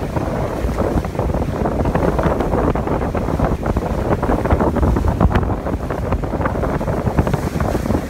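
Strong wind buffeting the microphone, with water rushing and splashing along the hulls of a small trimaran sailboat under way in choppy water.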